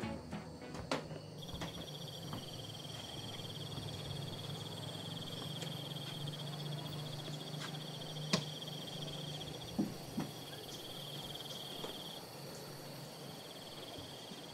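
Insects trilling in a steady high buzz that breaks off briefly twice in the second half. A low hum sits underneath for the first two thirds, and there is a single sharp click a little past halfway.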